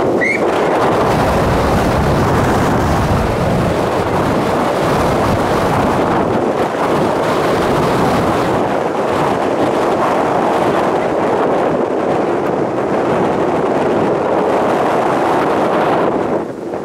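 Wind buffeting the microphone: a loud, steady rushing noise, with a brief rising whistle right at the start.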